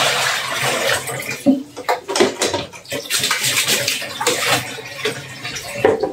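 Tap water running into a plastic tub at a kitchen sink, easing off about a second in. Water then sloshes, and the plastic tub knocks against the sink and counter as it is rinsed and set down.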